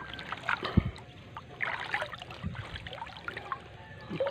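Water trickling and splashing off a gill net as it is hauled up out of the water, with a few dull knocks.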